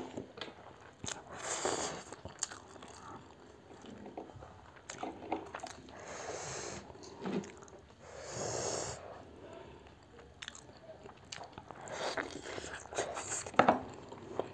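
Two people slurping and chewing spicy instant noodles close to the microphone, with several drawn-out slurps, the longest about six and eight seconds in, between wet chewing and small clicks.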